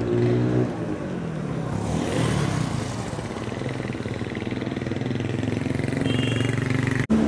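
Street traffic: motor vehicle engines running and passing by, their pitch sliding up and down as they go. A brief high tone sounds about six seconds in, and the sound drops out suddenly near the end.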